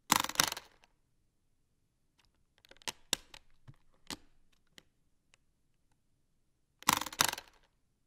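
Hard-shell briefcase latches and hardware clicking: a quick cluster of sharp clicks right at the start, scattered lighter clicks and handling in the middle, and another quick cluster of sharp clicks near the end.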